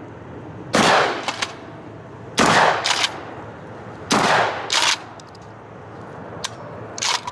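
Three shots from a KelTec bullpup pump-action 12-gauge shotgun, fired about a second and a half to two seconds apart. After each shot comes quicker clicking as the pump is worked, and a few lighter clicks follow near the end.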